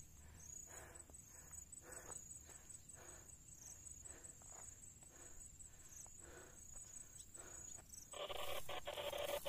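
Faint, steady high-pitched insect chirping, pulsing rapidly, with soft footsteps every half second or so. About eight seconds in, a louder scratchy rustling starts and runs to the end.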